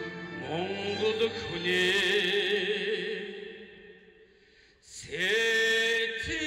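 A man singing long held notes with slides in pitch. The voice dies away about four seconds in, and a new held note starts about five seconds in.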